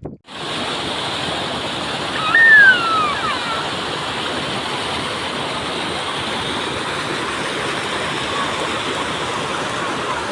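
Steady rush of flowing water from heavy rain, starting abruptly. A short, loud falling whistle sounds over it about two and a half seconds in.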